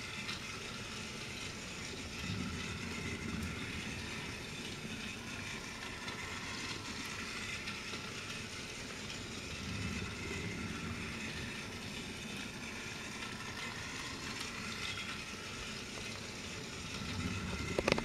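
Battery-operated Trackmaster toy engine's small electric motor and gears whirring steadily as it runs along plastic track, with a few sharp clicks near the end.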